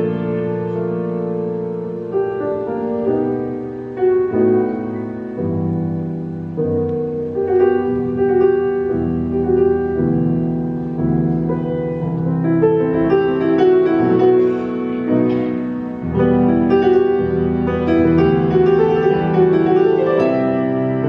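Grand piano played live: a solo improvisation in full sustained chords under a melody, the harmony changing every second or two.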